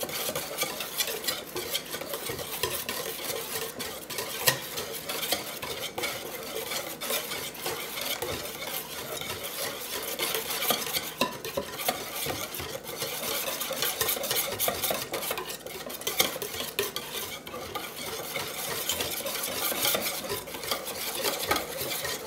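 Wire whisk beating lemon curd in a stainless steel bowl, its wires scraping and clicking against the metal in a steady run of quick strokes as lumps of butter are whisked in to melt.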